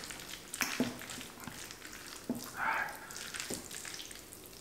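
Fork stirring and lifting sauce-coated noodles on a plate: faint wet crackling with a few light clicks of the fork.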